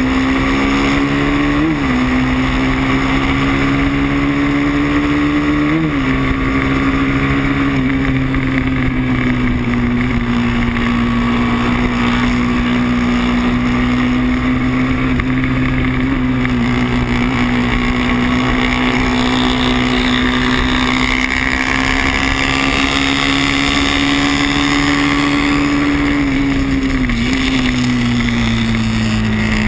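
Moto3 racing motorcycle's engine heard from onboard at race speed, held at a steady high pitch with brief jumps a couple of times and a drop near the end, under a steady rush of wind.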